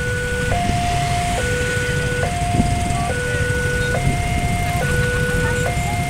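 Railway level-crossing warning alarm: an electronic two-tone signal that alternates evenly between a lower and a higher tone, each held just under a second. It signals that a train is approaching and the crossing is closed. A low rumble of waiting traffic runs underneath.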